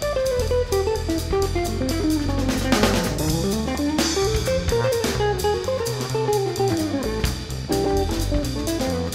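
Instrumental music: a guitar melody over bass and drum kit, with a steady beat.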